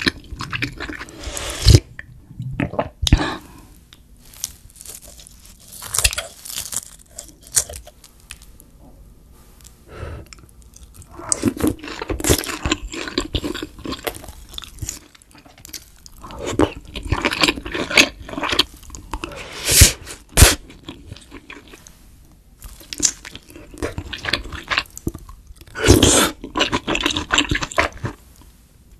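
Close-miked eating sounds: chewing and biting into soft tofu and other pieces of a spicy stew, coming in irregular bursts of sharp mouth clicks with short pauses between.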